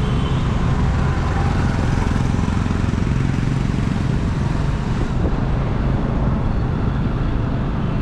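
Steady road and traffic noise from a car driving through city traffic: a constant low rumble with a hiss above it.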